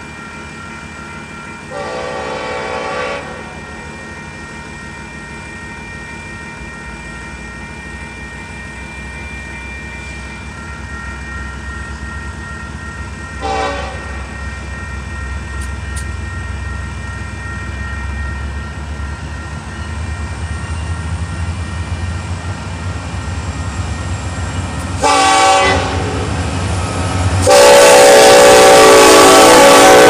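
Union Pacific diesel locomotive's Nathan K5LLA five-chime air horn: a blast about two seconds in, a short toot in the middle, another short blast near the end, then a long loud blast as the locomotives reach and pass. Under the horn, the rumble of the approaching diesel engines grows steadily louder.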